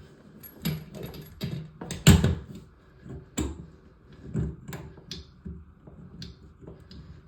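Irregular clicks and knocks of pliers and a metal supply-line nut being handled and tightened, the loudest about two seconds in.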